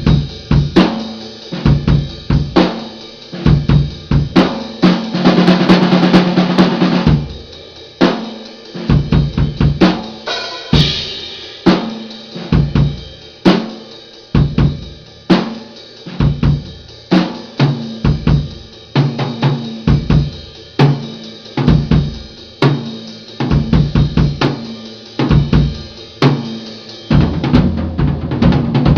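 A drum kit played solo: kick drum, snare and cymbals in fast, regular patterns with fills. About five seconds in, a cymbal crash rings over a low, sustained drum tone for about two seconds, and another cymbal wash comes in near eleven seconds. Near the end, a steadier low sound fills in under the drums.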